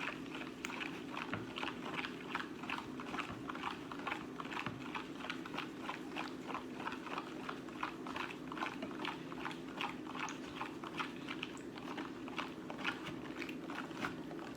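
A utensil stirring school glue and water together in a mixing bowl: a steady run of quick, soft clicks and scrapes, a few a second, over a low steady hum.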